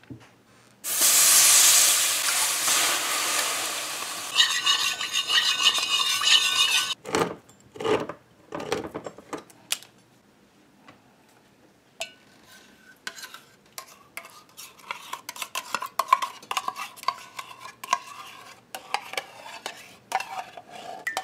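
Canned coconut milk poured into a metal karahi: a loud rush of pouring, splashing liquid starts about a second in and lasts several seconds. A few knocks follow, then many clinks and scrapes of a can and utensil against the pot as condensed milk is poured in.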